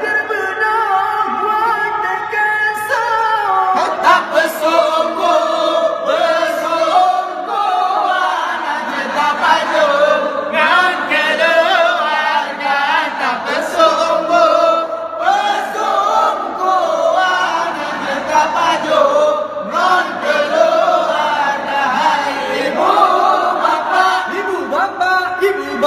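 A group of voices singing a chant together, a call waking people for the pre-dawn sahur meal in Ramadan.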